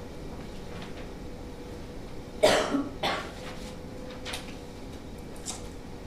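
A person coughing, two sharp coughs in quick succession about two and a half seconds in, followed by a couple of faint short sounds.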